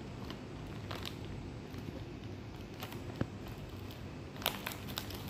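A plastic candy bag crinkling and rustling as a hand rummages in it: a few scattered sharp crackles, with a cluster near the end, over a steady low background hum.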